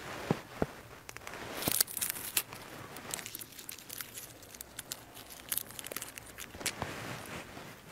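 Dry leaves and grass rustling and crackling under hands working at ground level, with irregular sharp clicks from small pruning shears. The loudest crackle comes about two seconds in.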